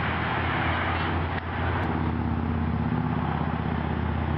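A motor running steadily: an even low rumble under a broad hiss, with no sudden sounds.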